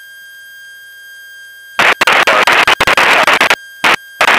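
Aircraft radio static in the headset feed: a faint steady hum with thin whistling tones, broken about two seconds in by a loud, choppy burst of static lasting nearly two seconds, then two short static bursts near the end.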